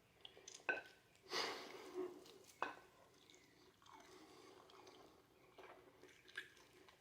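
A person chewing a mouthful of steak fat: faint, irregular wet mouth clicks and smacks.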